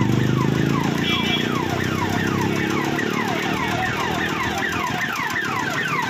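Electronic police-vehicle siren sounding a fast, repeated falling sweep, about three a second. A low hum runs underneath and fades by about halfway.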